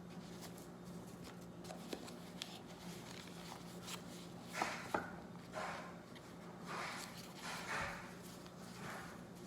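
Packaging being handled: rustling and a few light clicks and taps, over a steady low hum.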